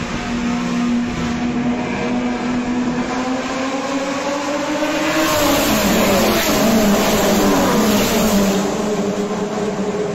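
A pack of Chevrolet Opala race cars with straight-six engines at full throttle, their engine notes rising as they approach. About five to six seconds in they pass close by and the several engine notes drop in pitch and overlap, loudest just after the pass, then carry on as the cars pull away down the straight.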